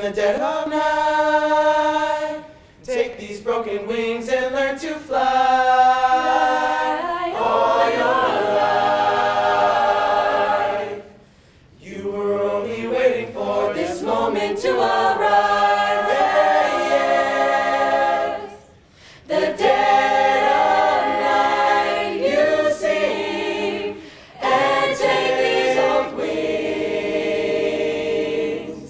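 A mixed-voice high-school a cappella group singing in close harmony without accompaniment, holding chords in phrases with short breaks between them.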